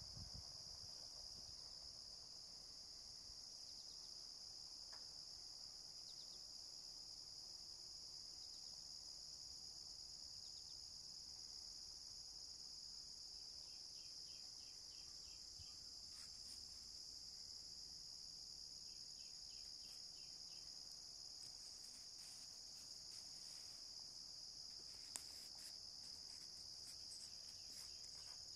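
Faint, steady, high-pitched chorus of crickets and other insects in a wildflower meadow. A brief pulsed trill comes twice around the middle, and a single sharp tick sounds a few seconds before the end.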